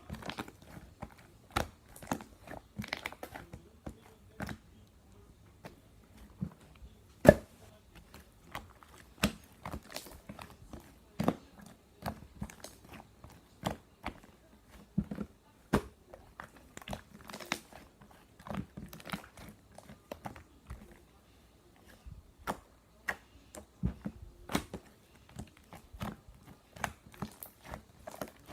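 Close-up chewing and crunching: irregular sharp crunches and clicks, a few much louder than the rest.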